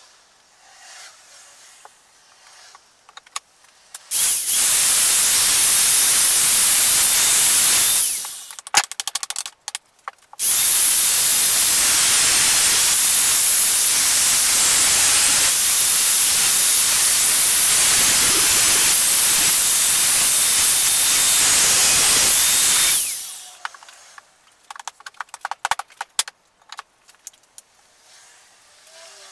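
Angle grinder cutting through protruding steel threaded rods, a loud steady hissing whine. The first cut lasts about four seconds, then comes a short pause with a few clicks, and a second run of about twelve seconds winds down near the end.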